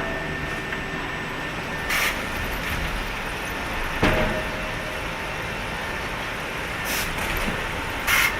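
Sawmill production-line machinery running steadily, with short, sharp clanks or hissing bursts about 2, 4, 7 and 8 seconds in.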